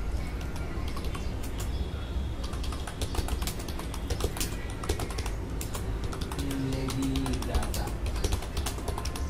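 Typing on a computer keyboard: a quick, irregular run of keystroke clicks starting about a second and a half in, with music underneath.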